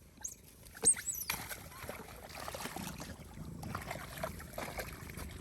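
Water splashing and trickling, with a brief high squeak about a second in.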